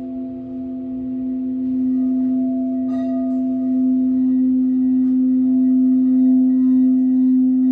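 Tibetan singing bowl ringing a steady, low, sustained tone with overtones above it. It swells gradually louder, and a light tap is heard about three seconds in.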